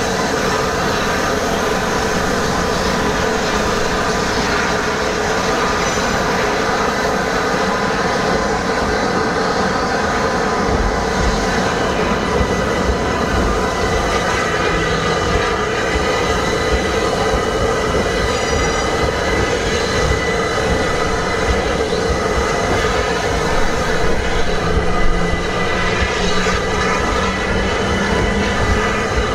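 Merchant Navy class steam locomotive standing with steam up, giving a steady hissing hum with several held tones. About five seconds before the end an electric suburban train draws alongside, adding a low rumble and a few clanks.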